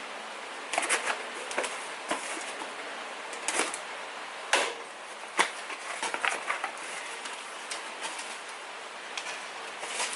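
Irregular light clicks and rustles over a steady hiss, like small parts or wiring being handled by hand.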